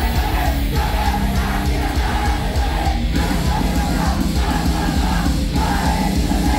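Loud live music played through a PA, with a heavy bass-driven beat and a performer's shouted singing over it.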